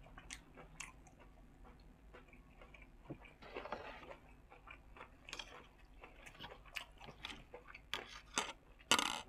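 Close-up chewing and crunching of a spicy pork yam sai tan salad with fresh vegetables, mixed with the small clicks and scrapes of a metal fork and spoon against a metal tray. A short louder noise comes near the end.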